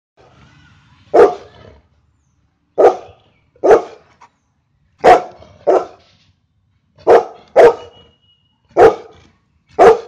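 Golden retriever barking: nine sharp single barks, spaced irregularly about a second apart, some in quick pairs.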